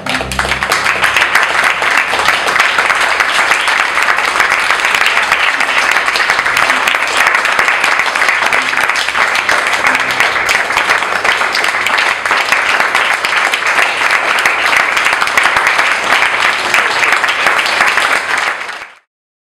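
Audience applauding, a dense, even clapping that holds steady and then cuts off abruptly near the end.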